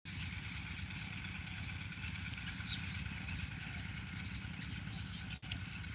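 Outdoor rural ambience: a steady low rumble under many faint, quick chirps of birds and insects. The sound drops out for an instant about five and a half seconds in.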